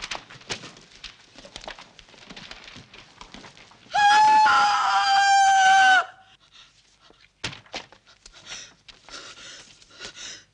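Faint rustling of cloth and small clicks as clothes and boxes are handled. About four seconds in, a woman's long, high-pitched scream is held for about two seconds and then cuts off sharply. Faint rustles follow.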